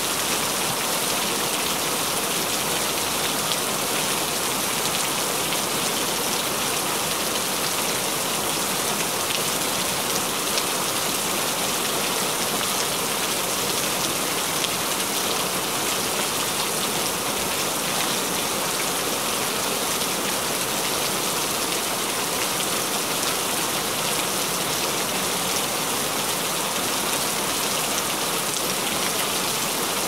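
Steady rain falling: an even hiss with the patter of many drops, unchanging throughout.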